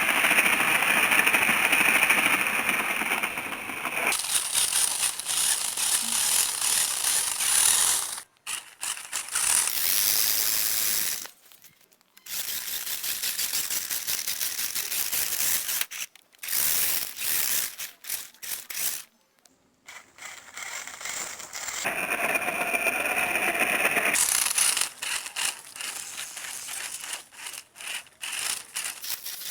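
Toy RC rock crawler's small electric motor and gearbox running in spurts of a few seconds, stopping briefly between them, with the wheels rattling and scraping over the ground.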